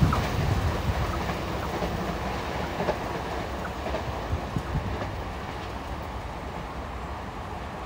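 Tobu 50050-series electric train running away into the distance, its running noise and wheel clatter fading steadily, with a few faint clicks of the wheels over rail joints around three to five seconds in.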